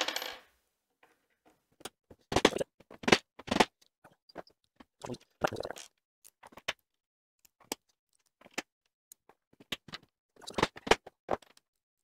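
Loose steel washers, nuts and bolts clinking and scraping on a tabletop as they are picked through by hand: a string of irregular sharp clicks with a few louder knocks.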